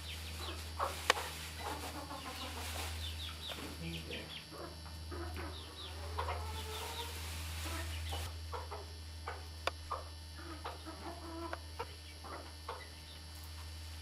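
Pet birds clucking and chirping in many short calls, over a steady low hum.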